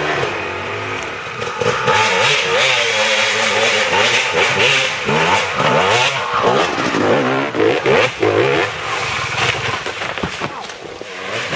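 Yamaha dirt bike engine revving up and down as the bike climbs a rough dirt trail and passes close by, with the pitch rising and falling over and over as the rider works the throttle.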